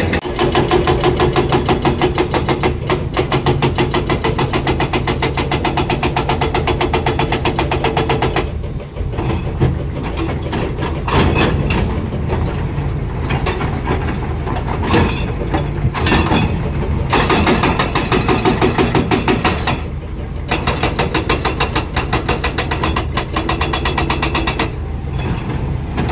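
Rapid, even machine hammering of a percussive rock-breaking tool over a running engine. It stops briefly three times.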